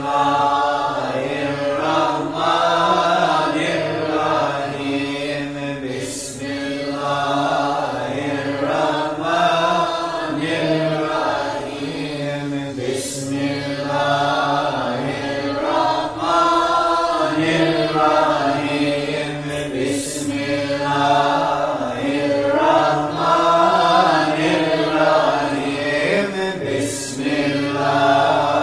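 Slow chanting by several voices over a held low drone, with a brief rushing sound about every seven seconds.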